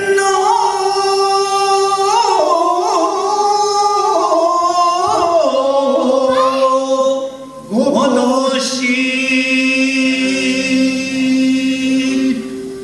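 Shigin, Japanese classical poem chanting, by a male chanter: long drawn-out notes with wavering, ornamented pitch. After a breath about seven and a half seconds in comes one long held note that ends just before the close.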